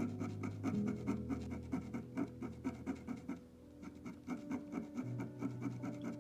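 A craft knife blade scraping coloured-pencil pigment off paper in quick, even strokes, about four or five a second, with a short pause a little past halfway, over soft background music of held chords.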